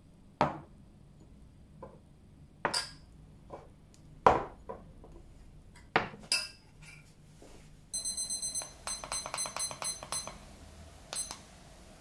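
Drinking glasses are set down and a spoon clinks against them in several sharp knocks, the loudest about four seconds in. Then a digital kitchen timer beeps: one longer high beep, a quick run of short beeps at about four a second, and one more near the end, as its buttons are pressed to set it.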